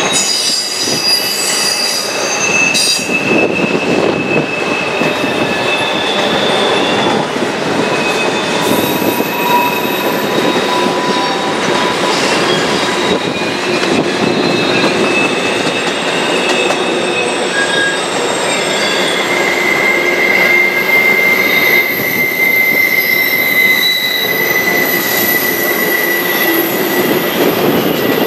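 Double-stack container freight cars rolling past on a curve, their wheels squealing in long, high, steady tones that come and go over a continuous rumble of the train; one squeal rises strongly about two-thirds of the way through and holds.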